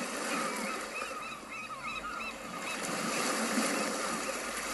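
Gulls calling repeatedly in short, bending cries over a steady wash of sea noise.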